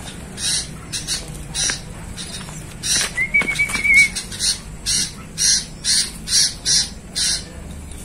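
A man whistles one held, slightly wavering note for about a second, about three seconds in, to call a tame-trained zebra dove back to him. Around it runs a string of short hissing sounds, roughly two a second.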